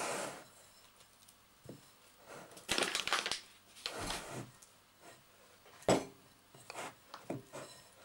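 Hands kneading pastry dough in a glass mixing bowl: irregular bursts of rubbing and handling, with a sharp knock against the bowl about six seconds in.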